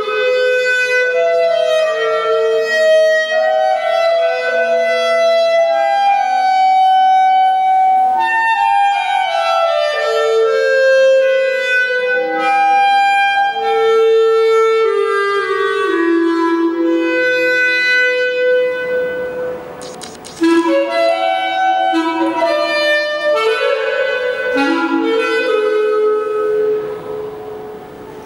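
Unaccompanied clarinet playing a melody, one note after another, with a short pause a little past the middle before the phrase picks up again; the playing stops shortly before the end.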